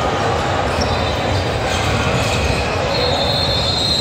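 Basketball bouncing on a hardwood gym court amid steady crowd and game noise in a large hall, with a thin high squeak about three seconds in.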